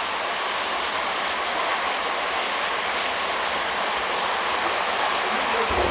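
Heavy rain falling steadily: a dense, even hiss of rain.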